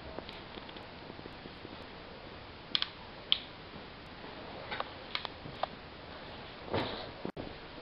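Handling noise: a few sharp clicks and light knocks over a steady hiss, with a short louder rustle or scrape near the end.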